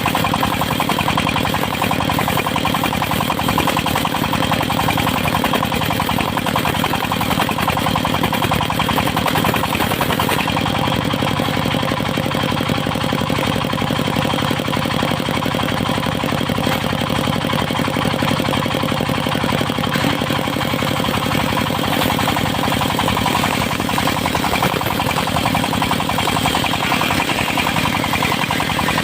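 Engine-driven circular sawmill running steadily, its engine holding an even, unbroken note.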